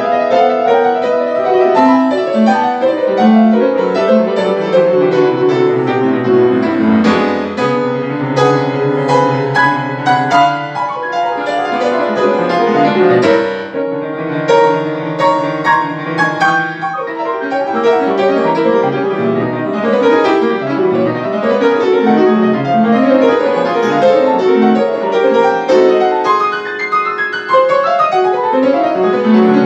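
Grand piano played solo in a classical piece, in fast, dense passagework.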